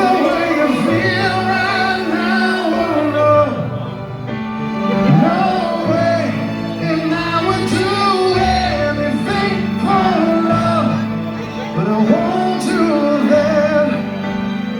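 Live rock band playing a power ballad, with a lead vocalist singing long, wavering notes over sustained band chords.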